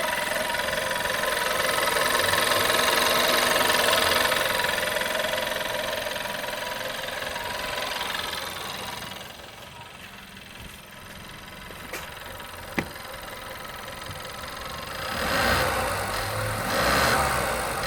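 Volkswagen 1.4 TSI turbocharged four-cylinder petrol engine running with a metallic ticking that has been there since its timing chain was replaced. The running is louder in the first half, then drops, with one sharp click about 13 seconds in and two brief swells near the end.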